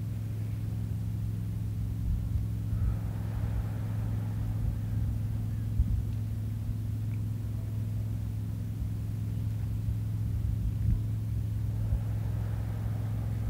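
A steady low mechanical hum with several held tones and some low rumble.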